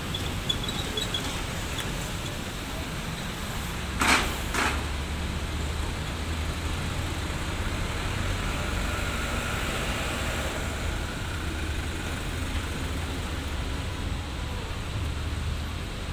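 Steady low rumble of idling vehicle engines at the fuel pumps, with two short, sharp clacks about four seconds in.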